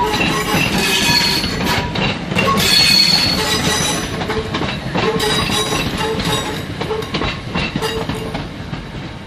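Class 319 electric multiple unit moving through the station, its wheels clicking over rail joints and points with some wheel squeal. It grows quieter over the second half.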